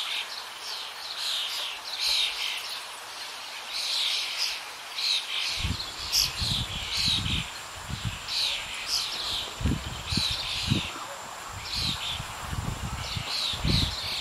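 Small birds chirping in quick, repeated high-pitched phrases, with irregular low thumps joining from about halfway through.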